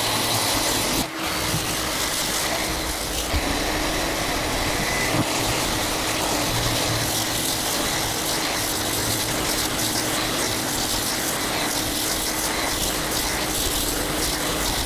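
Festool random-orbital sander running steadily with a coarse 60-grit disc against the kayak's epoxy-coated fibreglass, together with the steady hum of its dust extractor.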